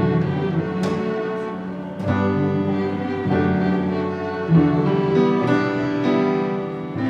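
Student string orchestra with grand piano playing a slow piece of film music: bowed violins and violas hold long notes over piano chords, the harmony changing every second or two.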